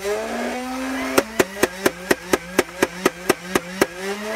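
Nerf Rival Khaos blaster firing in full auto: its flywheel motors spin up with a whine, then twelve sharp shots go off, about four a second, as the foam balls are fed through.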